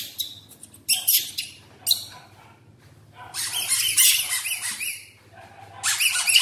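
Yellow rubber duck squeak toys squeaking as a baby monkey bites and squeezes them: a short burst about a second in, a longer run of quick wavering squeaks from about three to five seconds, and another starting near the end.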